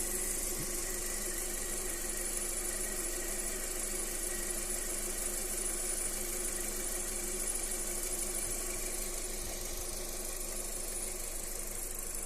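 Lada Vesta 1.8 engine idling steadily, with a persistent high-pitched squeak running over it. The squeak is a creak of unknown origin that the owner is trying to trace.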